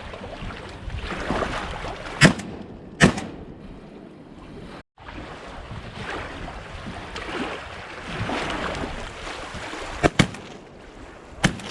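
Shotgun shots over steady wind and water noise: two shots about three-quarters of a second apart, then later a quick pair of shots and one more near the end.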